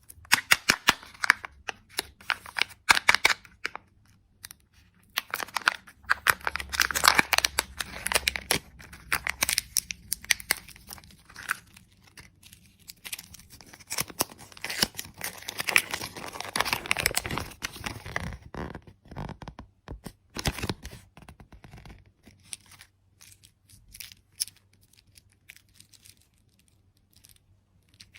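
Candy packaging being torn open and crinkled: dense bursts of crackling and tearing that thin out to scattered crinkles over the last several seconds.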